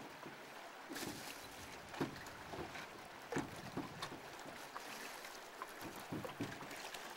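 Small lake waves lapping at a rocky shore: a steady wash broken by scattered light splashes and knocks.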